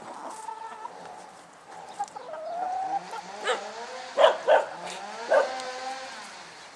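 A flock of red laying hens clucking while they feed, with a few short, louder calls between about three and five and a half seconds in.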